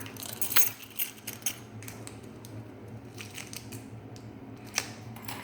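Light clicks and taps of small lock parts being handled: the Kwikset rekey kit's tiny pins and the deadbolt cylinder being picked up and set down, a few separate clicks over a steady low background hum.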